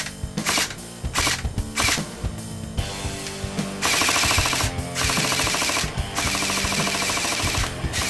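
Airsoft rifle shooting through a smoke-and-tracer silencer: a few separate shots, then from about three seconds in, long rapid bursts. Background music with a steady beat plays underneath.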